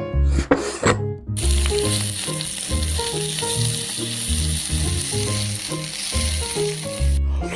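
Background music with a steady bass beat and a melody, overlaid from about a second in until near the end by a steady hiss.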